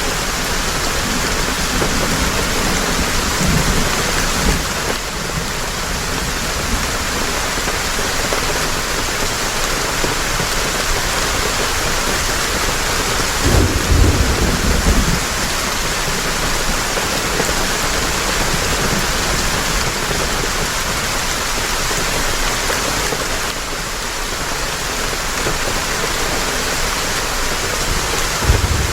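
Heavy rain falling steadily as a dense, even hiss, with low rumbles of thunder about three seconds in, around the middle, and again at the very end.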